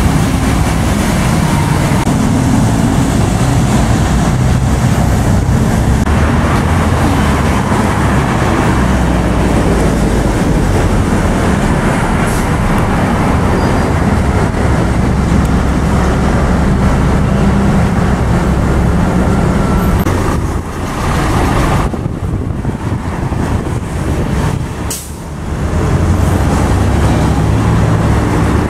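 City buses running past with general street traffic, a steady low engine rumble over road noise. The sound drops and changes abruptly a few times in the second half.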